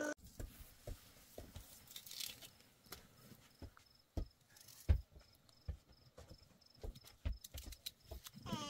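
Small clicks and crackles of a boiled egg's shell being cracked and peeled by hand, with a few soft thumps, the loudest about five seconds in. A faint, high chirp repeats evenly through the middle.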